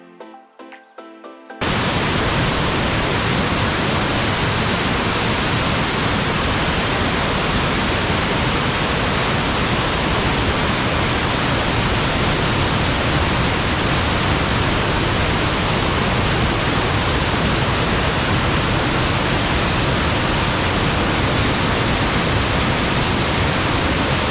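Waterfall roaring: a loud, steady rush of falling water that cuts in suddenly about a second and a half in, after a few quiet notes of music.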